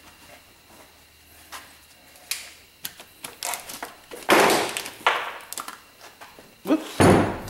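Gloved hands handling tools and small parts on a garage workbench: scattered light taps and knocks, with two louder, longer scuffs about four seconds in and near the end.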